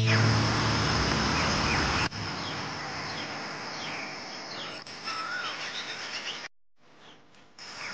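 Birds chirping in short, rising and falling calls over outdoor ambience. For the first two seconds a louder rushing noise covers them and then cuts off abruptly, and near the end the sound drops out for about a second.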